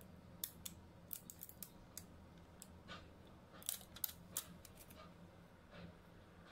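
Clear plastic transfer film crackling and clicking as it is rubbed onto and peeled off a metal transfer sticker on a glass perfume bottle: scattered sharp ticks in two clusters, about half a second in and again around three and a half to four and a half seconds in.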